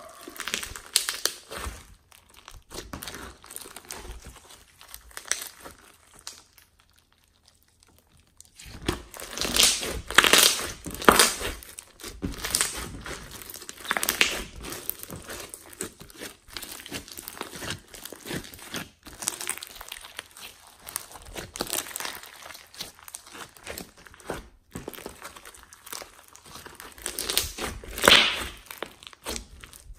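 Clear slime packed with small foam beads being squeezed and pressed by hand: irregular crunchy crackling and squishing as the beads pop and rub. There is a short lull about seven seconds in, and the loudest crackles come about ten seconds in and again near the end.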